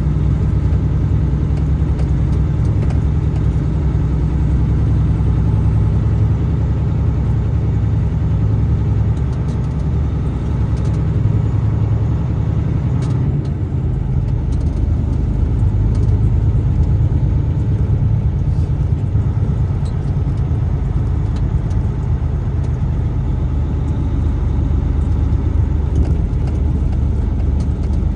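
A truck driving, its engine and tyres making a steady low rumble. The lowest part of the rumble shifts slightly about halfway through.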